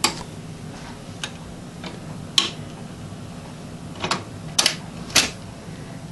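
Scattered clicks and pops from a worn record under the stylus of a Magnavox record changer, over a steady low hum from its amplifier and speaker.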